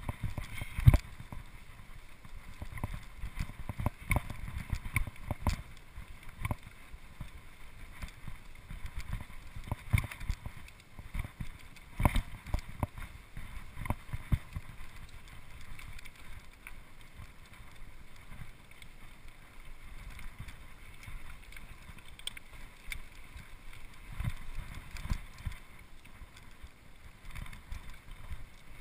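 Mountain bike ridden over a rough grassy, rocky trail: irregular rattles and knocks from the bike as it hits bumps and stones, over a steady rumble of tyres on the ground.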